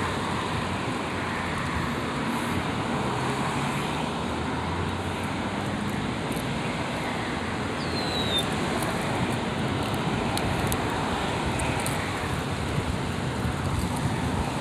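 Steady background noise of road traffic, with a brief, faint, falling high whistle about eight seconds in.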